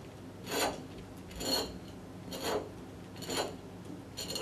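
Generation Green G2 bottle cutter's scoring wheel rasping on the glass of a wine bottle as it is turned, in four short scrapes about a second apart: a score line being cut around the bottle.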